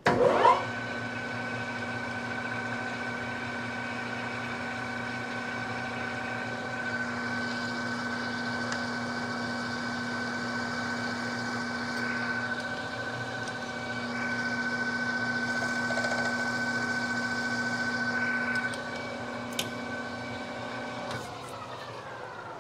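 Metal lathe spindle spinning up, running steadily with a whine, then spinning down near the end, while a center drill is fed into the end of a bolt held in the three-jaw chuck.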